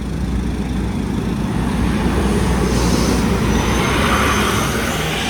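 Steady low rumble of a road vehicle moving in city traffic, with a louder hiss that swells a couple of seconds in and eases off near the end.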